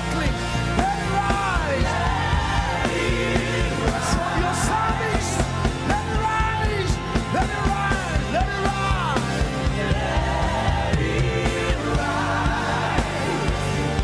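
Live gospel worship music: a band with a steady bass line and occasional cymbal crashes under sliding, drawn-out singing.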